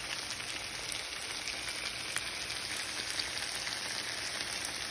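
Chicken pieces frying in oil and their own juices in a skillet, a steady sizzling hiss with scattered small pops.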